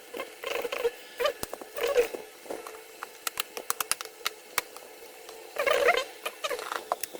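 Quick plastic clicks and ticks with short bursts of creaking as a laptop's plastic bottom cover is pressed and snapped back into place.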